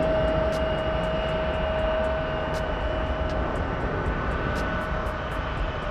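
Jet airliner engines running, a steady whine over a broad rumble, slowly fading.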